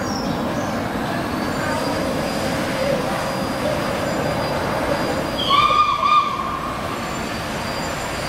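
LNER B1 4-6-0 steam locomotive 61306 Mayflower running toward the listener with a steady rumble of the train. About five and a half seconds in, a short whistle sounds for under a second, swelling twice.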